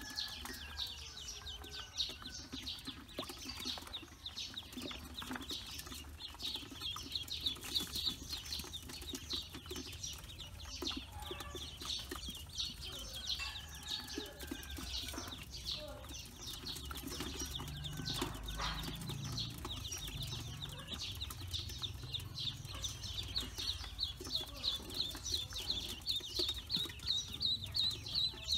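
A brood of newly hatched ducklings peeping continuously, many rapid high-pitched peeps overlapping.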